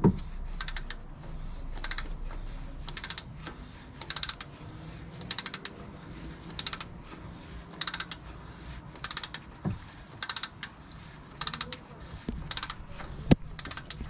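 Ratchet wrench clicking in short rapid bursts about once a second, each burst one back-swing of the handle, with a couple of single knocks near the end.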